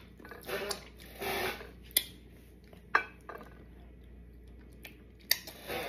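Dishes and utensils being handled at a table: three sharp clinks, about two, three and five seconds in, with brief rustling in the first two seconds.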